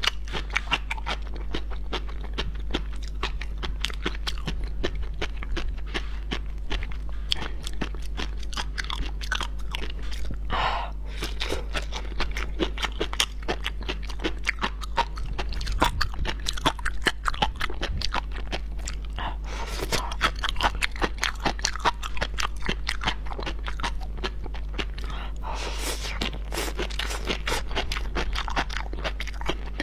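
Raw sea grapes (umibudo seaweed) chewed close to a small microphone: dense, rapid crunching pops as the tiny beads burst, over a low steady hum.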